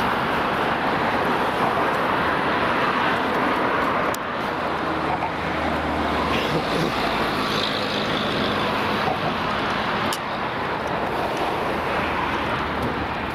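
Steady road traffic noise of cars and other vehicles running past, with two short clicks about four and ten seconds in.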